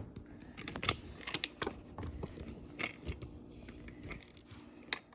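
Scattered light clicks and knocks, irregularly spaced, from kitchen items being handled and set down on a countertop.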